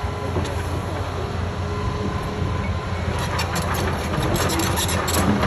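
Excavator's diesel engine running steadily under load, with a busy clatter of sharp clicks and knocks joining about three seconds in.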